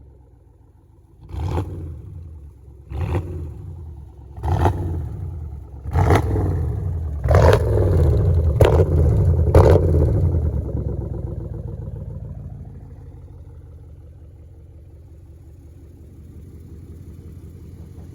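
Dodge Durango's 5.7 Hemi V8 exhaust, fitted with aFe shorty headers, revved in seven quick blips about every second and a half, then settling back to a steady idle.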